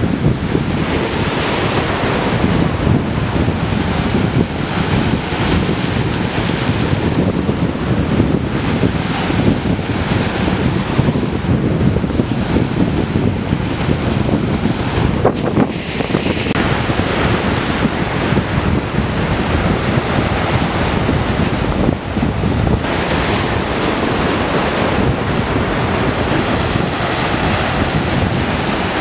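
Choppy waves breaking and washing over large shoreline rocks in a steady rush of surf, with wind buffeting the microphone.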